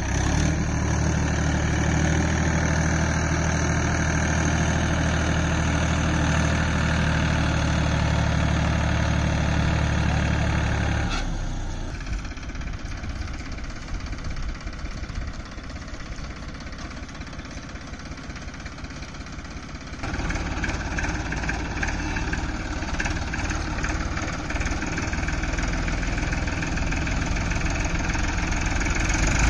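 Tractor diesel engine running steadily at idle, with a strong low hum; about eleven seconds in it drops to a quieter rumble for several seconds, then comes back louder with a rapid, even chugging.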